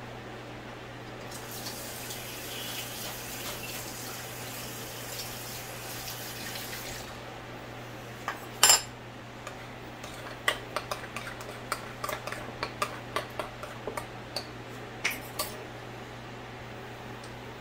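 A metal fork and spoon clattering and clinking against a ceramic bowl while a thick mayonnaise dressing is stirred: one loud clatter about halfway through, then a quick run of clinks. Under it, the steady hum of an electric fan, and in the first half a rushing hiss for about six seconds.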